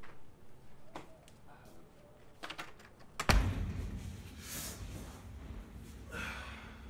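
People moving about in a small room: scattered footsteps and small knocks, then a heavy low thump a little over three seconds in, followed by rustling as they settle onto the couch.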